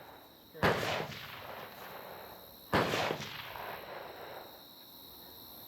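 Two handgun shots about two seconds apart, each with a short echoing tail.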